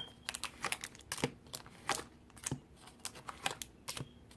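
Pokémon booster packs being handled: their foil wrappers crinkling and crackling in a string of short, irregular clicks.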